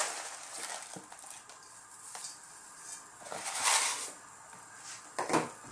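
Soft rustling and patter as a bundle of dried misua noodles is tipped from a plastic tub into a pot of soup, the loudest rush a little past halfway, with a short sharp sound near the end.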